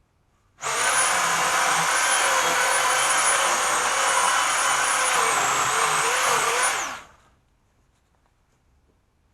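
Electric chainsaw switched on about half a second in, running at a steady high whine with small dips in pitch, then winding down and stopping about seven seconds in.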